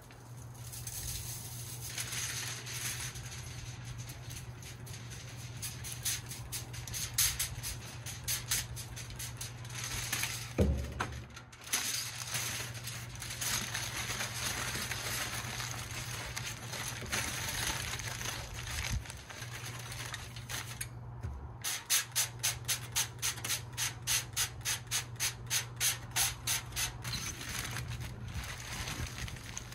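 Aluminium foil crinkling and rustling as a smoked pork butt is wrapped in it, with a few thumps partway through and a quick run of crinkles, about three a second, over the last several seconds. A steady low hum runs underneath.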